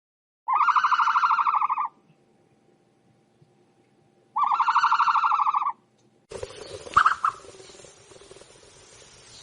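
Bird call recordings. A bird gives two long, rapidly pulsing calls, each about a second and a half, a few seconds apart. Then a different recording with background hiss and a short call about seven seconds in.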